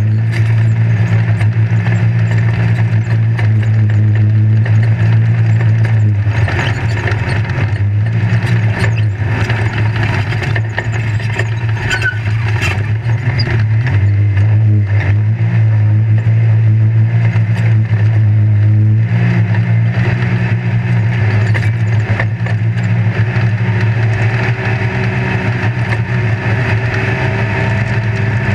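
Off-road race vehicle's engine running hard, heard from inside the open-sided roll-cage cockpit, a loud steady drone whose pitch shifts a few times. Over it come frequent short knocks and rattles from the chassis over rough dirt.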